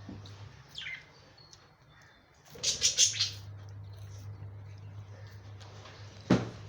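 Pet budgerigars chirping: a short falling call about a second in, then a burst of rapid high chirps around the middle. A sharp knock comes near the end.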